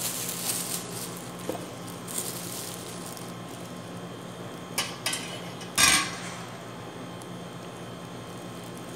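Thin plastic bag rustling as it is opened and fitted over a plastic funnel, then a stainless steel cup and the funnel being handled and set down: a sharp knock just before five seconds in and a louder clatter about six seconds in. A low steady hum runs underneath.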